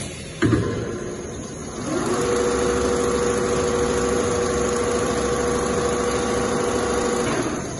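Two-head CNC pattern sewing machine running as it stitches leather. Its drive gives a steady mechanical whine that ramps up about two seconds in and winds down near the end, after a brief gliding tone near the start.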